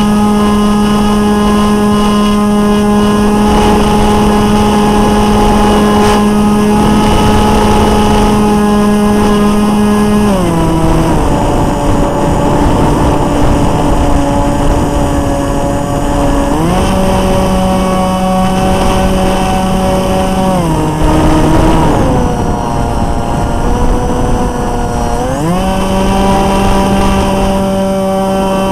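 Brushless electric motor and propeller of an RC flying wing, heard from the on-board camera, whining at a steady pitch. The pitch drops as the throttle is eased about ten seconds in, climbs back near the middle, drops again, then rises near the end, over the rush of air across the camera.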